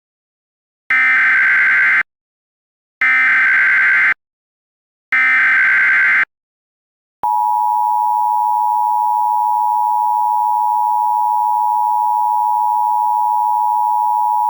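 Emergency Alert System broadcast tones: three short bursts of SAME header data, about a second each, a second apart, then the steady two-tone attention signal, which starts about seven seconds in.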